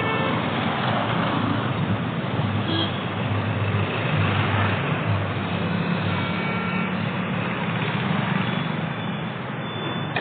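Steady road traffic noise: vehicle engines and tyres running continuously, with a couple of brief faint tones like distant horns.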